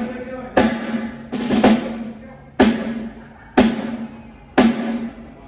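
1967 Ludwig Acrolite aluminium snare drum struck alone about once a second for a sound check, each hit ringing out with a rattle of snare wires before the next; one hit comes as a quick double stroke.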